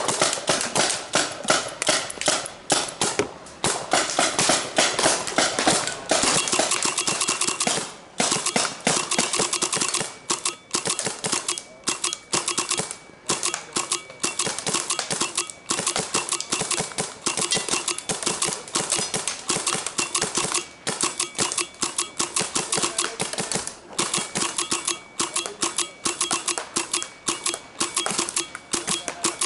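Empire Resurrection electronic paintball marker firing on compressed air in rapid strings of shots, with a few brief pauses between strings.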